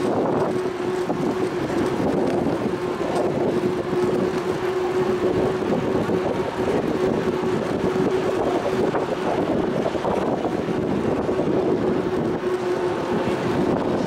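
Wind rushing over the microphone of a moving bicycle, over steady street and traffic noise, with a faint steady hum.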